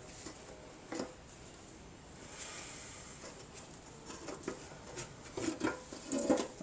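Scattered clicks, knocks and rubbing from the dented gas tank and clamp being handled, with a denser run of knocks and a few short creaks near the end.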